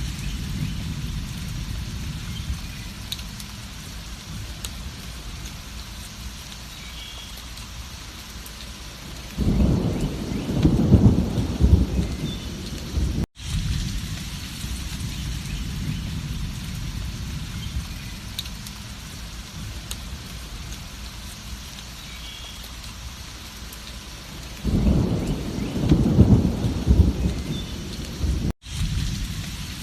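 Steady heavy rain with a low rumble. Thunder rolls twice, about ten seconds in and again about twenty-five seconds in, each lasting a few seconds. The sound cuts out for an instant twice, where the recording loops.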